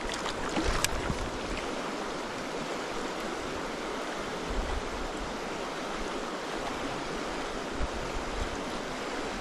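Fast, shallow mountain river rushing over a rocky riffle: a steady hiss of running water. A few faint clicks come about a second in.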